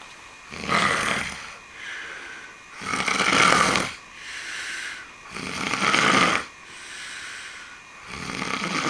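A man snoring very loudly in his sleep: four loud snores about two and a half seconds apart, with quieter breaths between them.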